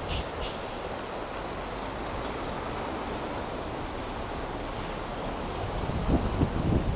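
Rough sea surging and breaking against the harbour in a strong wind. There are two brief clicks right at the start, and about six seconds in gusts buffet the microphone with low rumbling thumps.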